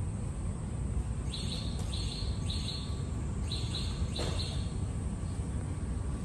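A bird chirping: five short high chirps, roughly half a second to a second apart, over a steady low rumble.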